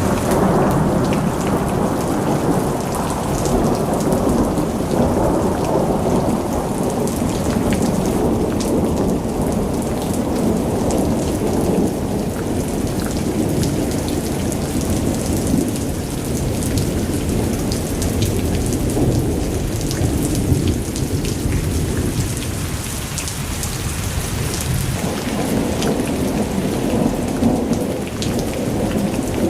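Heavy rain in a thunderstorm: a steady patter of drops over a low rumble of thunder that swells and eases.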